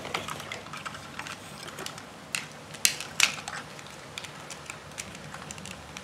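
Plastic toy packaging being handled and worked open, with scattered clicks and crackles and a few sharper snaps between about two and three and a half seconds in.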